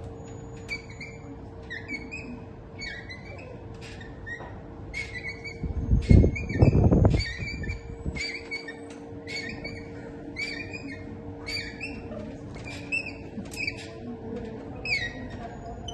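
Small bird chirping over and over, a short high chirp about every second or less, over a faint steady hum. About six seconds in, a louder low rumble lasts about two seconds.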